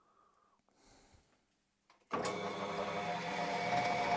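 Bench metal lathe switched on about halfway through, starting abruptly and then running steadily with a whine, ready to take another cut on the taper.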